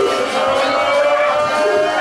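Crowd voices holding long notes that rise slowly in pitch, over a general murmur from the audience.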